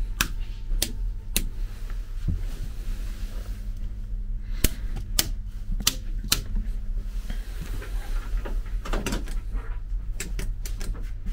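Sharp clicks and knocks in short runs, about one every half second or so, over a steady low hum inside a railway passenger carriage.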